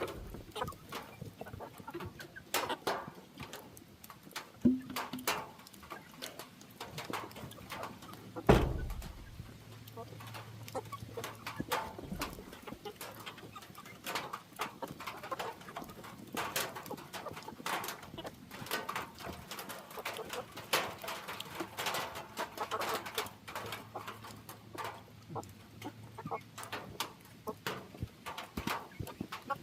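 Backyard chickens clucking and calling, with scattered small clicks and one loud knock about eight seconds in.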